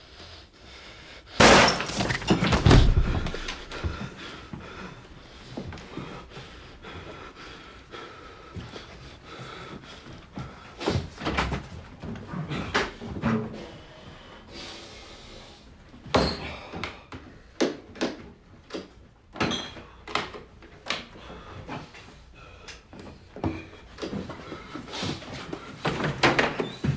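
Pistol shots fired in a small room. The loudest come about a second and a half in, several close together, followed by a run of sharp bangs and knocks over the second half.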